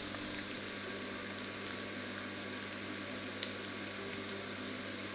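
Two steaks sizzling in a hot cast-iron grill pan: a steady frying hiss with small crackles and one sharper pop about three and a half seconds in, over a steady low hum.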